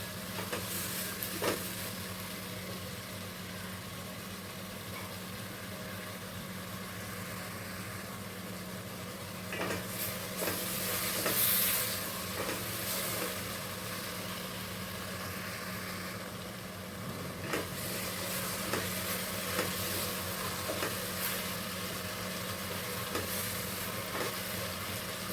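Chopped suran (yam) frying in oil with onions and tomatoes in a deep pan, sizzling steadily, with a spatula now and then clicking and scraping against the pan, most busily around the middle. A steady low hum runs underneath.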